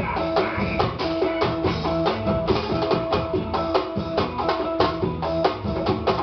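Live band playing a song at a sound check, with a steady drum-kit beat under held musical notes.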